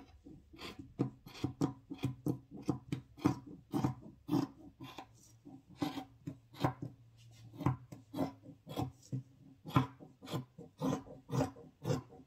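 Scissors cutting through fabric: a steady run of short snipping strokes, about two to three a second, as a narrow strip is cut off along the edge of the cloth.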